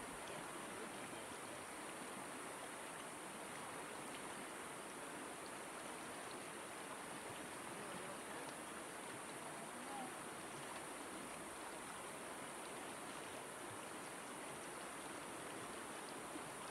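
Shallow river water running over a rocky bed, an even, steady rush.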